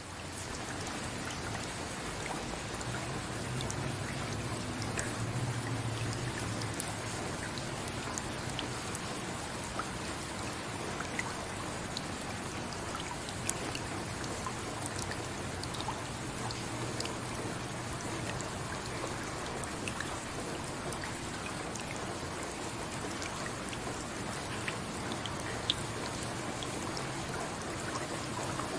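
Steady rainfall, an even patter with scattered louder individual drops striking hard surfaces.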